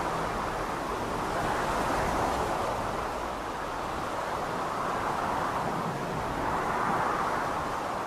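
A steady rushing noise with no clear pitch, swelling and easing every two to three seconds.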